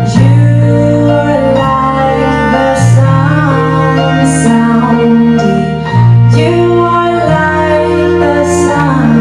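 A woman singing a slow song live with piano, electric bass and cello. Long held notes over bass notes that change every second or two, with wavering vibrato on the sung line.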